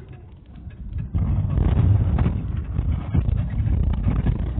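Minibus engine and road rumble heard from inside the cabin while it drives, with rattling. It gets clearly louder about a second in.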